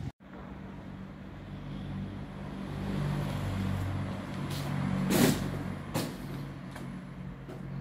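A heavy vehicle's engine running with a steady low hum that swells toward the middle. A short, loud burst of noise comes about five seconds in, and a click follows a second later.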